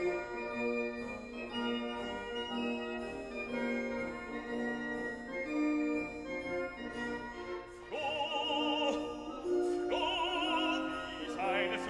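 Background classical music: held keyboard chords, then an operatic singing voice with strong vibrato coming in about eight seconds in.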